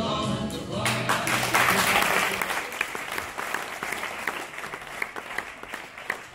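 Music stops about a second in and an audience bursts into applause. The applause is loudest early, then gradually thins out to a few scattered claps.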